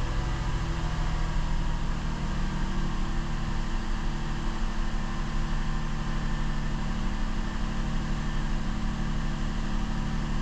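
2007 Mazda 6's 3.0-litre V6 running steadily at an elevated idle, with a hiccup or two that the mechanic feels in it, the sign of the intermittent cylinder 2 misfire he is chasing.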